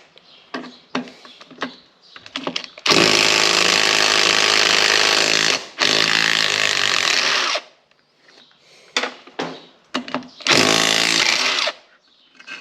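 Impact wrench running against the intake manifold bolts of a Ford 460 V8, in three runs: about three seconds, a second run of nearly two seconds after a brief break, and a shorter one near the end. Short clinks and knocks of tool handling fall between the runs.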